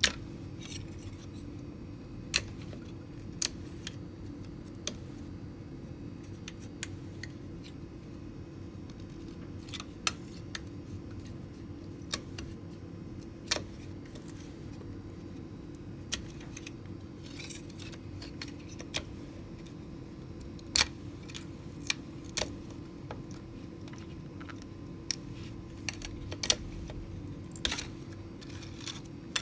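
3D-printed fabric clicking and clinking in scattered light taps as it is pulled off a 3D printer's build plate, over a steady low hum.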